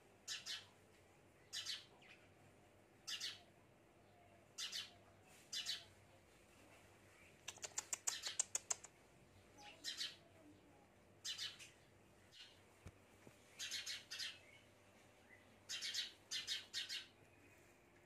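House sparrow chirping: short high chirps, singly or in twos and threes every second or so, with a quick run of rapid chirps about eight seconds in.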